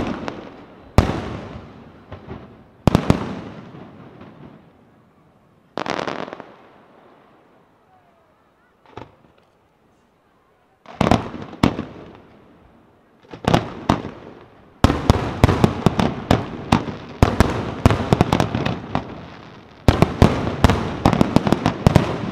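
Aerial firework shells bursting, first single bangs a second or two apart, then a quiet stretch of a few seconds. About two-thirds of the way in, a rapid barrage of many overlapping bangs and crackles sets in and builds further near the end.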